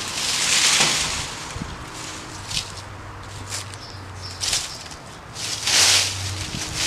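Dry leaves and brush rustling: an armful of dry branches tossed into a dump cart about half a second in, a few light clicks in the middle, and a rake scraping through dry leaves near the end.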